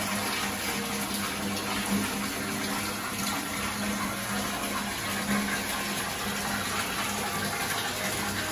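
Tap water pouring from a bathtub spout into the tub as it fills, a steady rush of running water.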